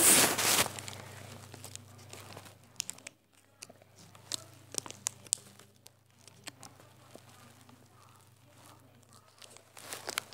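Plastic snack packaging being handled. It opens with one loud rip about half a second long, followed by scattered crinkling and small clicks.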